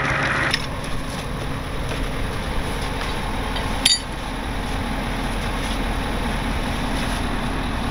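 Truck engine idling steadily. A hiss cuts off about half a second in, and there is one sharp metal clink about four seconds in.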